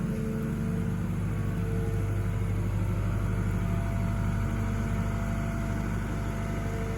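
Cat 313 excavator's diesel engine running steadily, with a low rumble and a steady whine above it.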